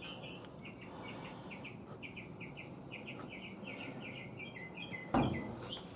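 A bird chirping in a quick, steady run of short repeated notes, about five a second. A single sharp knock sounds about five seconds in.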